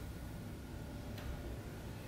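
Faint low steady hum with a single sharp click about a second in, from entering a value on a laptop.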